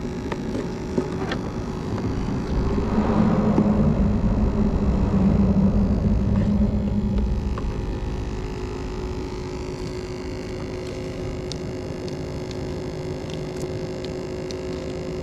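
A vehicle crossing the bridge, its rumble building about two and a half seconds in and fading away by about eight seconds, over a steady low hum.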